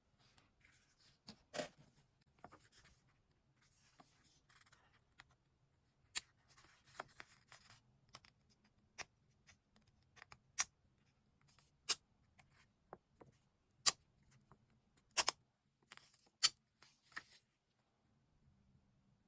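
Paper and stationery being handled while decorating a diary: soft paper rustling in the first few seconds, then about a dozen sharp clicks roughly a second apart.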